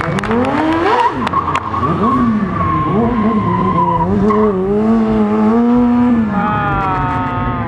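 Stunt motorcycle engine revving hard: it climbs steeply within the first second, drops and climbs again a few times, is held high for a couple of seconds, then falls back near the end.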